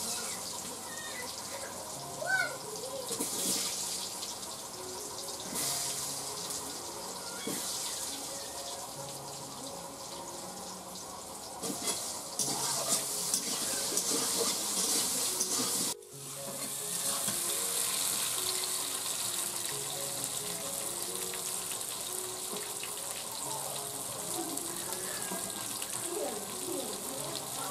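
Potato chunks sizzling as they fry in hot oil in an iron kadai, a steady hiss that grows louder after a break about sixteen seconds in. Faint background music plays underneath.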